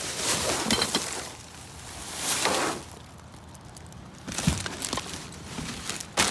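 Rustling and clattering of curbside junk being handled, with scattered sharp clicks and knocks and a short swelling rush of noise near the middle.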